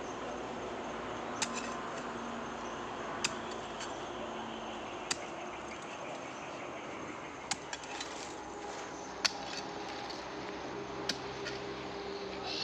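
Long-handled hoe chopping into soil, a sharp strike about every two seconds over steady background noise.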